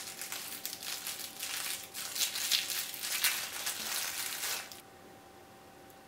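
Thin clear plastic wrapper crinkling and crackling as it is pulled off a small mochi squishy toy by hand, stopping about five seconds in.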